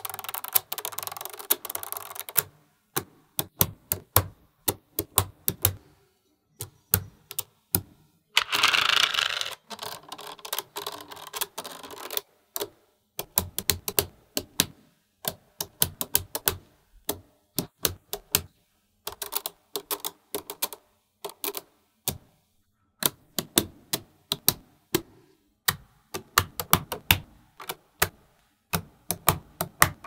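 Small magnetic balls clicking and snapping together as they are set in place one by one: a quick, irregular run of sharp clicks. There are two stretches of denser rattling, at the start and about a third of the way in.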